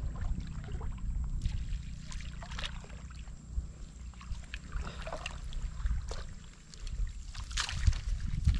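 Shallow water splashing and trickling in short bursts as hands pull floating water plants up out of a lake, over a steady low rumble.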